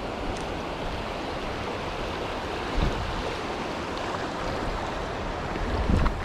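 River water rushing steadily, with a couple of low thumps, one about three seconds in and another near the end.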